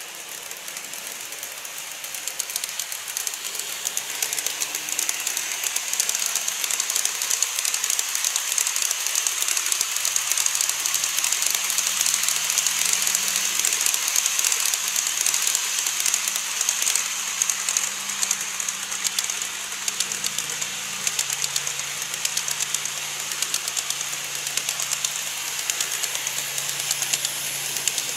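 Model train, an ED76 electric locomotive hauling a rake of 14-series coaches, running along elevated viaduct track: a steady clattering hiss of wheels on rail with rapid fine ticks and a faint low motor hum, growing louder over the first few seconds as it comes close. Near the end a thin high whine joins as a 787-series model passes on the near track.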